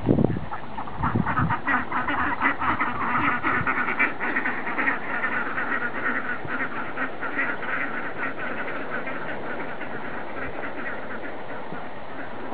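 A flock of domestic ducks quacking in rapid, overlapping calls that thin out and fade over the second half. A low thump sounds right at the start.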